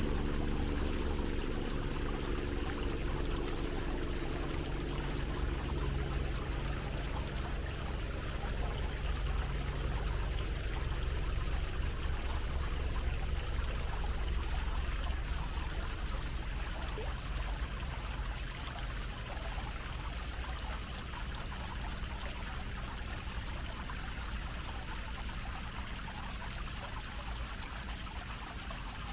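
Fountain running steadily: a dome-shaped jet of water splashing down onto a metal grate over its basin, an even, unbroken rush of falling water.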